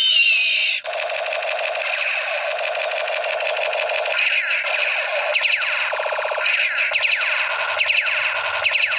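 Battery-powered toy robot pistol playing its electronic sound effects: a busy warbling run of electronic beeps, with repeated falling laser-zap sweeps from about halfway through.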